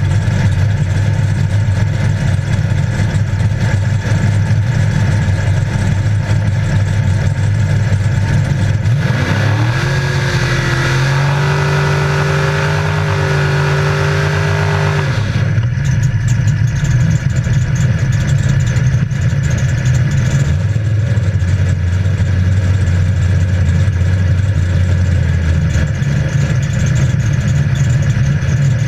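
Big 850 hp drag-racing engine of a 1968 Pontiac Firebird idling loudly, heard from inside the stripped, caged cabin. About nine seconds in the revs rise and are held higher for some six seconds, then fall back to a lumpy idle.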